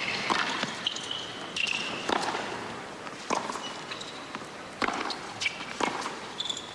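Tennis rally on a hard court: several sharp racket strikes on the ball about a second or so apart, with short high sneaker squeaks in between.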